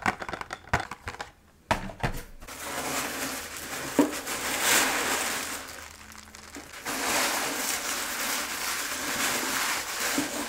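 A few sharp taps and clicks, then packaging crinkling and rustling as it is handled, in two long stretches with a short lull about two-thirds of the way through.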